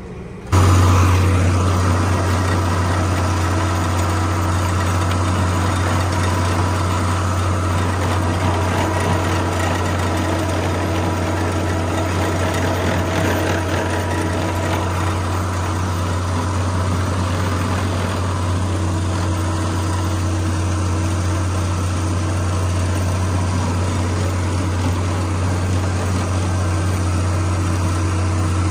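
A tractor engine running steadily at constant speed, a loud low hum that cuts in suddenly about half a second in.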